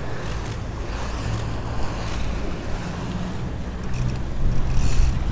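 Boat engine running steadily, with water rushing and wind noise on the microphone; it grows louder about four seconds in.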